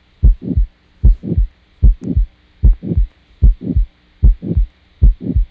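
Heart heard through a stethoscope with the murmur of aortic stenosis, beating about 75 times a minute, each beat a pair of thumps.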